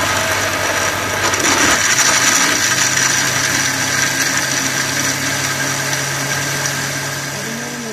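Electric countertop blender running at speed, crushing ice cubes and blending milk, strawberries, banana and ice cream into a shake. It is a loud, steady motor whir, and a steadier low hum sets in about two and a half seconds in as the mix turns smooth.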